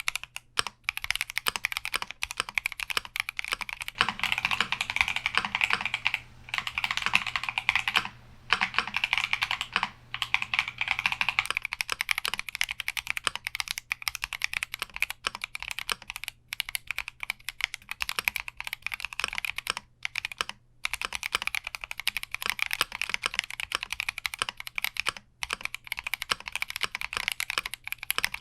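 Typing on a Keychron Q60 mechanical keyboard: quick, continuous keystrokes, broken by a few short pauses.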